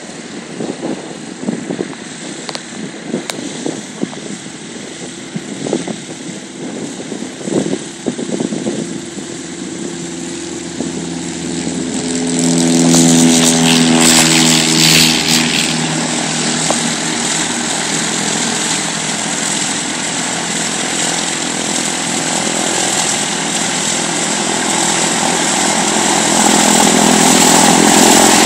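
Cessna 152's four-cylinder piston engine and propeller running at taxi power. It grows louder from about eleven seconds in, with a rush of propeller air as the aircraft passes close by, then runs steadily and swells again near the end as the aircraft turns to face the listener.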